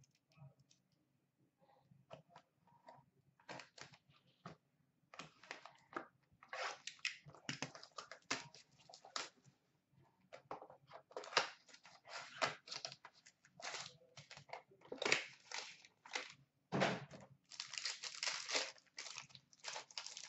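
Small cardboard trading-card box being opened and the cards inside handled: quiet, irregular crinkles, scrapes and clicks of cardboard and card stock, busier after the first few seconds.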